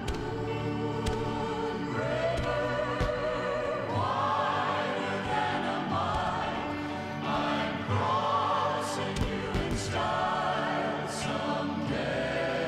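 Slow, dramatic orchestral ballad with singing voices holding long notes with vibrato.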